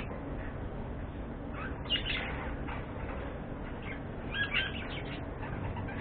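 Budgerigars chirping: two quick clusters of short chirps, about two seconds in and again about four and a half seconds in, over a steady low background noise.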